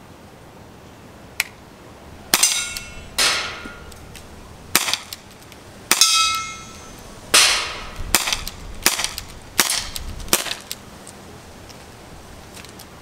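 CO2 airsoft revolver firing about nine sharp pops, roughly a second apart, each trailing off in a short hiss of gas, a couple followed by a brief metallic ring. The shooter is firing to use up the CO2 cartridge.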